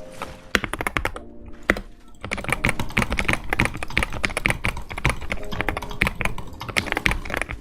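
Fast typing on a computer keyboard, a dense stream of key clicks that thins out briefly about a second in, then picks up again.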